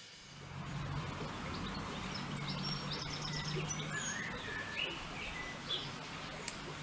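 Small birds chirping and whistling in short, scattered calls over a steady low background hum.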